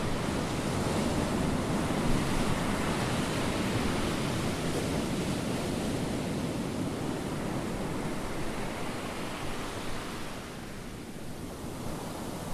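Ocean surf washing steadily, with wind on the microphone; it eases a little about ten seconds in.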